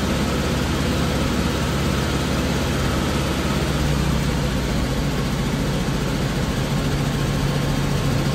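1954 Volkswagen Beetle's air-cooled flat-four engine idling during its warm-up after a cold start, heard from inside the cabin. It runs steadily, with a slight change in its note about halfway through.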